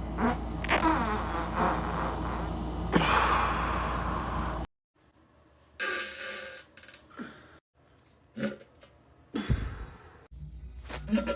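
A man farting and sighing, in several short clips cut together. The first clip cuts off abruptly a little under five seconds in, followed by short separate bursts.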